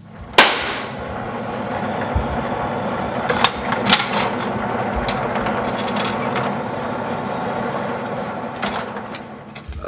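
A sharp metallic clank, then a shop power tool running steadily while it works the metal engine-mount plate, dying down near the end.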